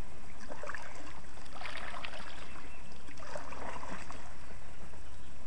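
Kayak paddle dipping and splashing in creek water, two strokes about one and a half and three and a half seconds in, with small knocks, over a steady low rumble.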